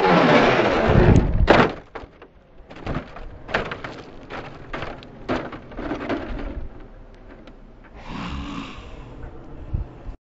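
Brushless electric motor of a Traxxas Slash RC truck whining and changing pitch as it flies off a jump, then a heavy thud about a second and a half in as it lands. Scattered knocks and thumps follow.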